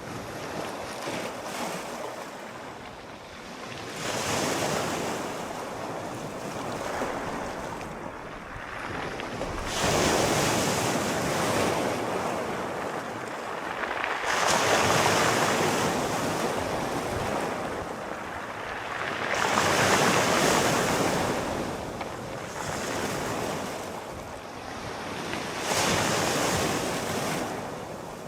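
Sea waves washing onto the shore, the surf rising and falling in about five surges, one every four to six seconds.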